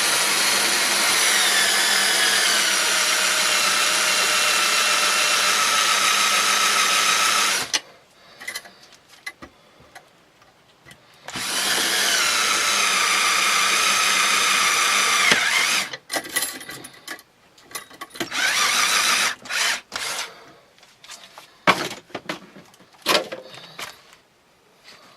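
Power drill boring out the trigger rivet of a 110 bodygrip trap. It runs in one long stretch of about eight seconds, its whine dropping in pitch as the bit bites, then a second run of about four seconds and a short third burst, with small knocks and clicks in between.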